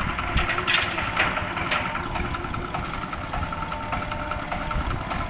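Engine of a mobile rice thresher running steadily, with a few sharp clicks in the first two seconds.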